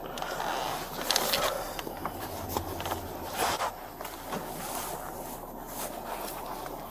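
Highway traffic passing, a steady rush with a low hum swelling in the middle, along with a few light clicks and rustles of handling.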